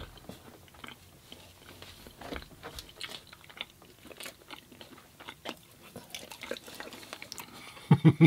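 Close-miked chewing and biting of food, with irregular small crunches and wet mouth clicks. A short, loud vocal sound comes near the end.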